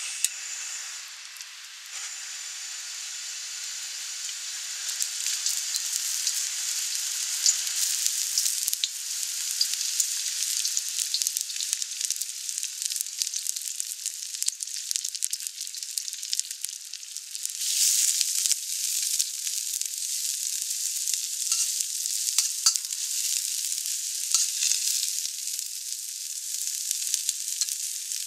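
Sliced onion, green onion and mushrooms frying in hot oil in a wok: a steady sizzle full of small crackles and pops that builds over the first few seconds, with a louder surge of sizzling about two-thirds of the way through.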